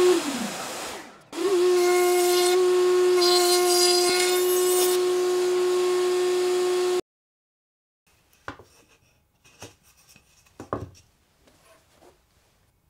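Router in a router table running with a steady high whine. Near the start its pitch falls away as it slows, then it comes back up to speed about a second later and runs steadily until it cuts off suddenly. After that, a few light knocks.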